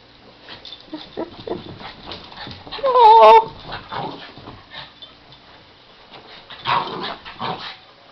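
Two small dogs play-fighting, with soft scuffling and knocks of paws and bodies; about three seconds in one dog lets out a loud, half-second whining yelp with a wavering pitch, and two short rough bursts follow near the end.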